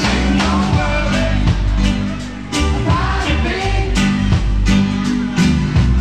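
A band playing a song with singing over a steady bass and drum beat.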